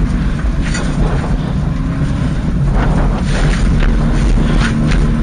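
Subaru Impreza rally car at full race speed on a dirt stage, heard from inside the cabin: the engine running hard under loud road and wind noise, with a few short, sharp knocks from the rough surface. The engine pitch climbs slightly near the end.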